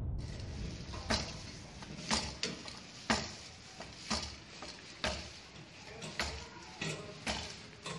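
Sharp, short knocks about once a second, coming a little closer together near the end: strikes landing during Wing Chun training.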